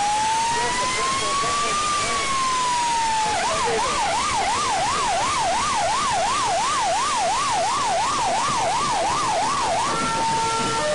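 Fire engine's electronic siren: a slow wail that rises and falls once, then a fast yelp sweeping up and down about twice a second. Near the end it changes to steady alternating tones.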